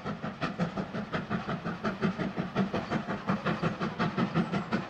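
Steam locomotive hauling a train, its exhaust chuffing in a fast, even rhythm of about five beats a second.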